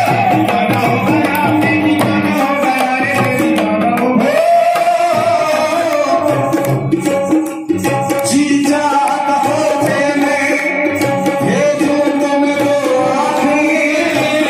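Hindi devotional bhajan played live: male voice singing a wavering melody over harmonium, with tabla and dholak drumming. The sound dips briefly about seven and a half seconds in.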